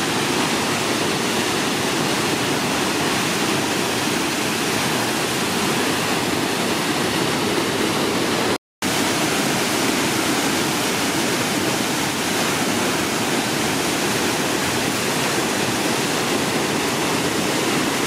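Waterfall crashing through a narrow rock gorge: a loud, steady rush of water that cuts out for a moment near the middle.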